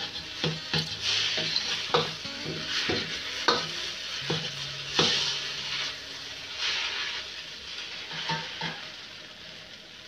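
Metal ladle scraping and knocking against a steel wok as flat rice noodles are stir-fried, over a steady sizzle. The strokes come irregularly, about one a second, and thin out near the end.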